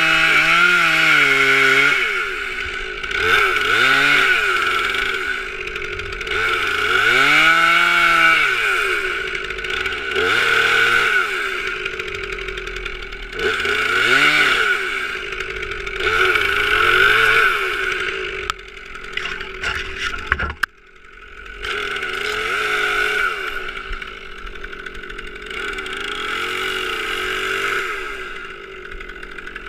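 Stihl MS 362 R C-M two-stroke chainsaw cutting, its engine pitch repeatedly sagging and rising again every couple of seconds under load. About two-thirds of the way through comes a short run of sharp cracks, after which the saw runs on more steadily and a little quieter.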